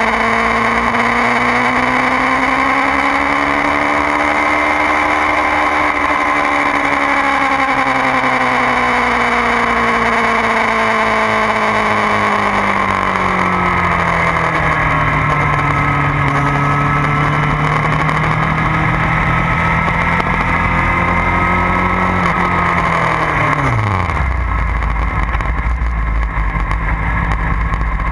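Inline-four engine of a 2009 Kawasaki ZX-6R running at part throttle, its pitch drifting up and down. About halfway it settles to a lower steady note. Near the end it drops steeply to a low idle as the bike slows into pit lane.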